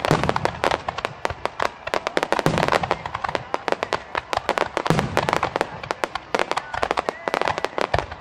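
Aerial fireworks barrage: a rapid, unbroken crackle of many small shell bursts and reports, with a deeper boom about every two and a half seconds.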